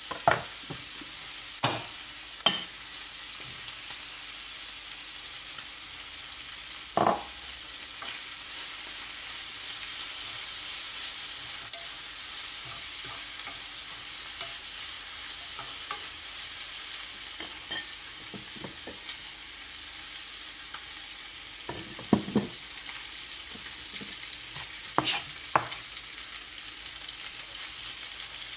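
Chicken pieces sizzling in a hot frying pan, stirred and turned with a utensil that knocks and scrapes against the pan now and then.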